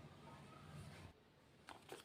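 Near silence: faint room tone with a low hum that drops out about a second in, then a couple of soft clicks near the end.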